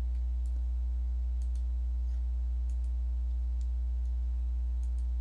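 A steady low electrical hum with a few fixed tones above it, the loudest sound, under about ten faint, scattered clicks at a computer as encoding options are picked.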